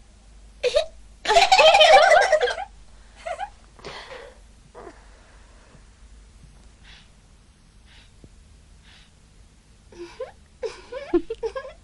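Girls laughing: a loud burst of laughter a little over a second in, a few shorter laughs after it, then a run of short giggles near the end.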